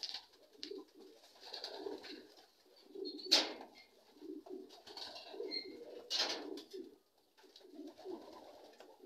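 Racing pigeons cooing over and over, with two sharp noises about three seconds apart standing out above them.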